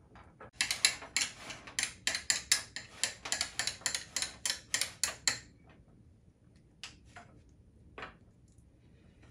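Metal spoon tapping and scraping against a ceramic ramekin while shaping thick genfo porridge: a quick run of clicks, about four or five a second, for roughly five seconds, then a few single taps.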